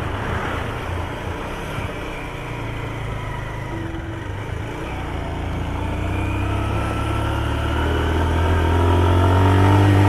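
Motorcycle engine running under way, heard from the rider's seat. Its pitch and level climb steadily through the second half as the bike speeds up.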